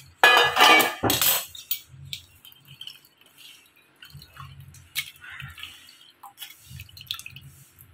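Boiled ginger and lemon peel water being strained into a glass: a loud rush of noise about a second long near the start, then scattered light clinks of the strainer and vessels against glass.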